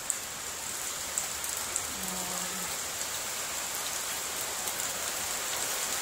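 Steady rain falling, an even hiss with a few faint drop ticks, over a thin steady high tone.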